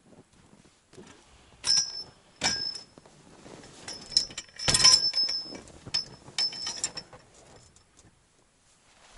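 Irregular sharp metallic clicks and clinks, several with a short high ring. The loudest cluster comes about five seconds in.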